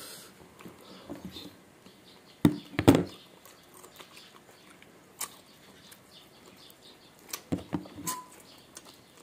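Close-up eating sounds: chewing and mouth clicks while food is eaten by hand, with a few short, louder crackles, one cluster about two and a half seconds in and another about seven and a half seconds in.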